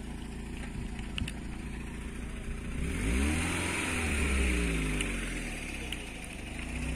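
A motor vehicle passing by: its engine note and tyre hiss swell about three seconds in and fall away over the next few seconds, over a steady low rumble.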